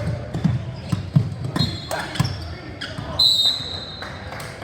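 Basketball bouncing on a hardwood gym floor in a string of low thuds, with sneakers squeaking on the court, the loudest squeak about three seconds in, over background voices in the gym.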